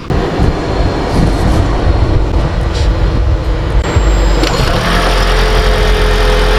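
Toyota Prius α's petrol engine starting abruptly and running steadily, kicked in by the hybrid system when the air-conditioning compressor is switched on. A steady tone joins it about four and a half seconds in.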